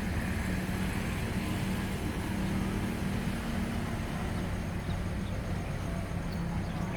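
Diesel train engine running steadily with a low hum.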